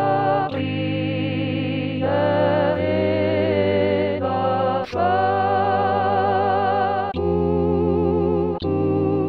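A four-part hymn setting played back by notation software with a sustained choir-like voice sound with vibrato. The chords are held and change every second or two as the parts move together, a few changes marked by a faint click.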